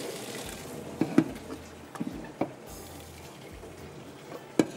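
Boiled rice and its cooking water poured from a pot into a colander, the water splashing and draining away and fading within about a second, then several sharp knocks of the pot and colander.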